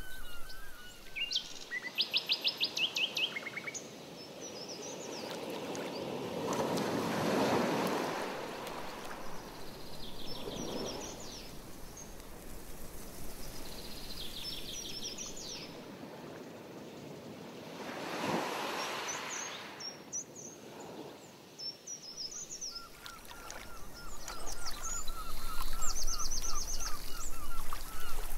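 Small birds singing in the shoreline woods: repeated chirps and short fast trills, with a steady run of repeated notes near the end. Two longer swells of rushing noise come and go about eleven seconds apart.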